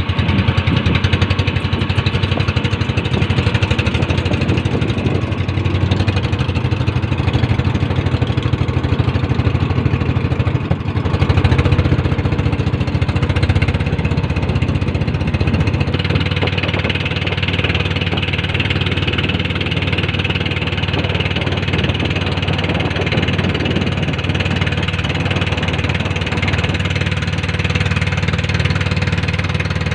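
Small fishing boat's engine running steadily under way, with a slight change in its note about 11 and 16 seconds in.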